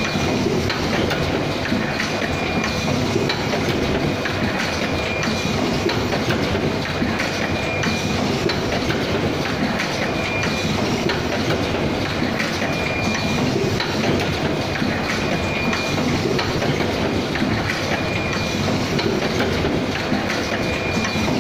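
CY XD8001 automatic cup mask machine running: a steady, dense mechanical clatter, with a short high tone recurring every two to three seconds.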